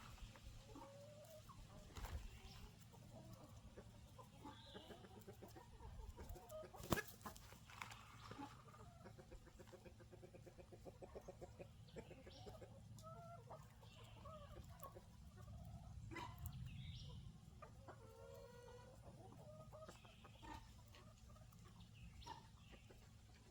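A flock of chickens clucking and calling softly in short, scattered notes, with a fast trill about nine seconds in. A few sharp clicks cut through, the loudest about seven seconds in.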